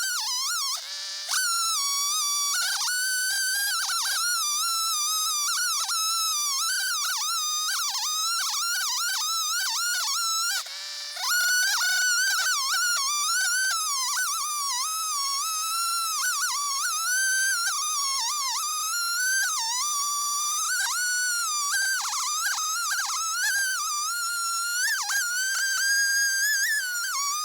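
Jonsered 670 two-stroke chainsaw running at full throttle on an Alaskan chainsaw mill, ripping a slab from a walnut log. A high whine that wavers constantly as the load on the chain changes, briefly dipping about a second in and again about 11 seconds in.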